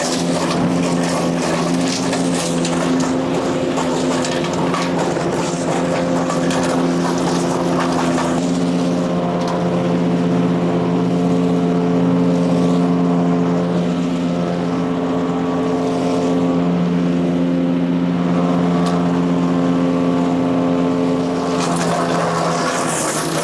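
Power King chipper-shredder's Kohler CH440 14 HP single-cylinder engine running steadily under load. For the first eight seconds or so, and again near the end, a dense crackling rasp of material being chipped and shredded rides over it. In between, the engine is heard on its own.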